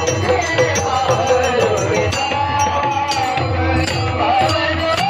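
Kirtan music with pakhawaj drumming: dense low drum strokes and sharp metallic clicks under a melody that glides in pitch.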